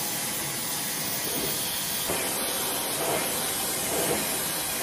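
Hair dryer blowing air through wet hair, a steady rushing hiss with slight swells about once a second.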